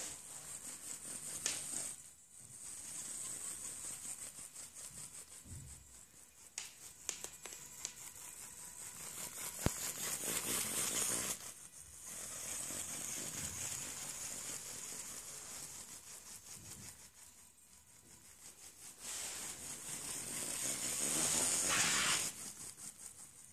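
Small DC gearmotors of a two-wheeled self-balancing robot whirring in stretches of several seconds, with short pauses and a few sharp clicks, as its IR-reflection balancing control drives the wheels back and forth. The whirring is loudest just before it stops near the end.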